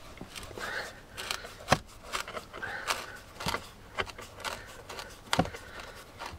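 Screwdriver working a stubborn rusty screw out of plastic door-sill trim: about half a dozen sharp, irregular clicks with light scraping between them.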